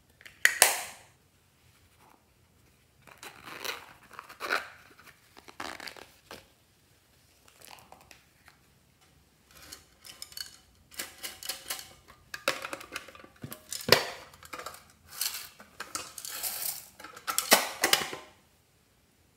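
Hard plastic cases handled close to the microphone: a compact snapped shut, then a lidded box picked up and worked open, in irregular bursts of clicking, scraping and rattling with a few sharp snaps.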